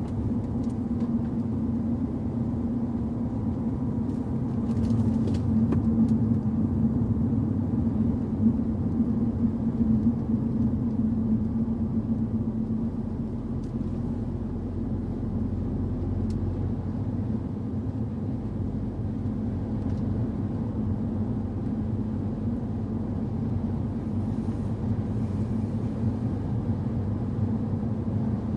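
Car driving at a steady pace, its engine and tyre rumble heard from inside the cabin, swelling slightly for a few seconds before settling again.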